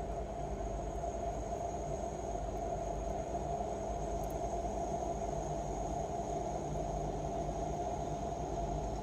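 A small amount of water boiling steadily inside a Viomi portable electric kettle-tumbler with a 300 W heater.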